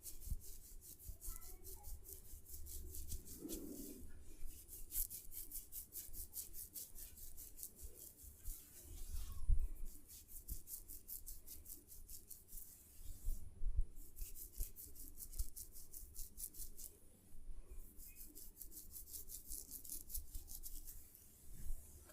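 Hair and scalp rubbed in quick, even strokes during a head massage: a fast, rhythmic rasping, about six strokes a second, in runs of a few seconds with short pauses, with a few dull thumps.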